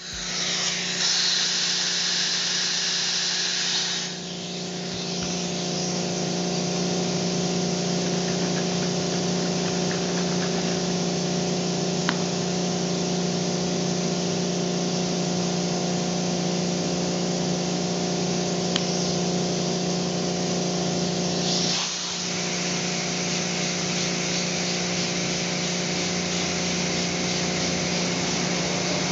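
Steady mechanical hum with a hiss over it, workshop machinery running without a break.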